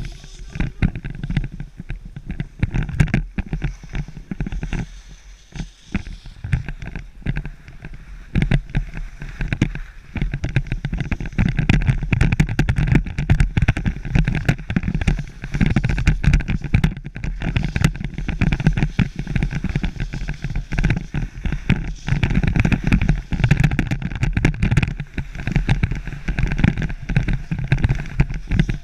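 Wind buffeting a body-worn action camera's microphone while its wearer skis downhill, with skis scraping and chattering over packed snow; louder from about ten seconds in.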